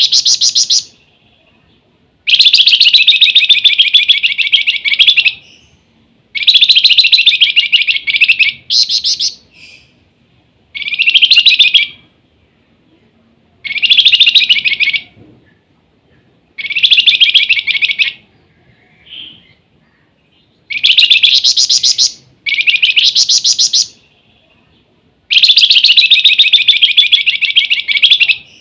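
Flamboyan songbird (Javan fulvetta, 'wergan jawa') singing: loud bursts of rapid, shrill chattering notes, each one to three seconds long, repeated about every three seconds with short silent gaps.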